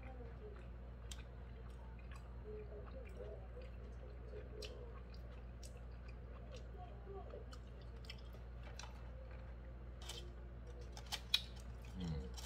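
A person chewing a mouthful of hamburger with the mouth closed: soft wet chewing and mouth clicks over a steady low hum. In the last couple of seconds a few sharper crackles come from the paper wrapper being handled.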